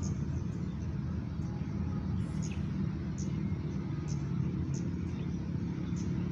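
Steady low wind noise buffeting the microphone, with short high chirps repeating a little more than once a second.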